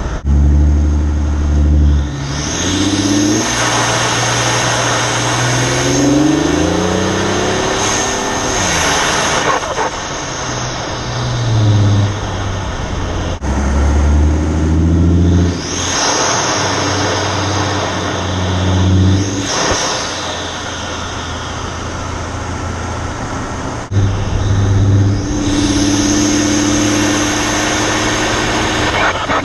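Ford 2.7 EcoBoost twin-turbo V6 pulling hard several times, its pitch climbing and stepping with the gear changes. A high turbo whistle rises over the engine as the turbos spool, louder through the Injen cold air intake.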